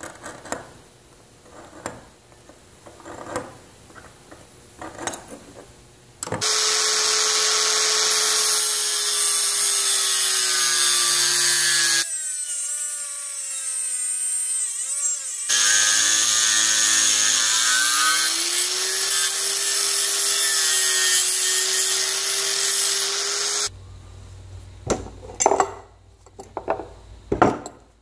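Angle grinder with a cut-off disc cutting through 3/8-inch steel bar: a loud, continuous grinding whose motor whine sags and recovers as the disc bites. It starts about six seconds in after some faint scratching and tapping, and stops about four seconds before the end, followed by a few sharp knocks.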